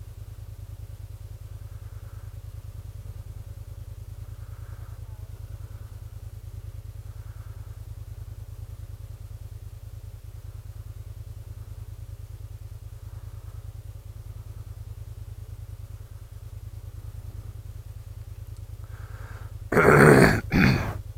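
Kymco maxi-scooter engine idling with a steady low rumble, broken about a second before the end by two short, loud bursts of noise.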